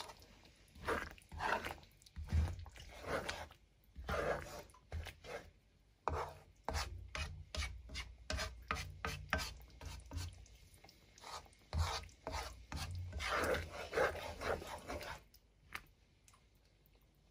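Cooking utensil scraping against the pan as banana blossom simmered in coconut milk is stirred, the sauce cooked down nearly dry. It comes as irregular scraping strokes with short pauses, and dies away about fifteen seconds in.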